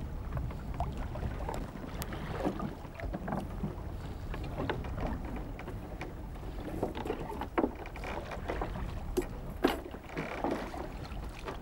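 Muffled underwater ambience: a steady low rumble with scattered sharp clicks and knocks, a couple of them louder in the second half.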